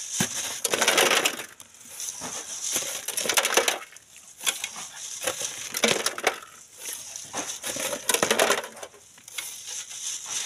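Steel shovel scraping into gravelly sand and gravel rattling across a hand-held wire sieve, in repeated bursts about a second apart.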